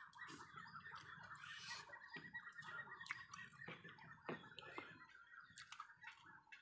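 Faint sounds of eating by hand: scattered soft clicks of chewing and of fingers working food on a plate, over a steady high-pitched background drone.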